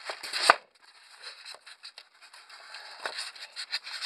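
Packaging being handled by hand while items are taken out of a boxed model train set: a sharp knock about half a second in, then scattered small clicks and rustles.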